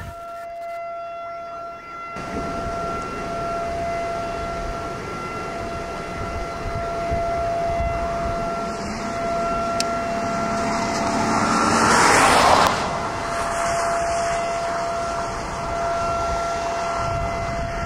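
Outdoor tornado warning siren sounding a steady single-pitched wail that swells and fades as it rotates, over a background of wind noise. About eleven seconds in, a louder rush of noise builds and cuts off.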